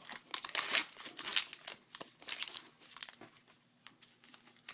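A trading-card pack's wrapper being torn open and crinkled, in repeated bursts that die down after about three seconds into a few light clicks.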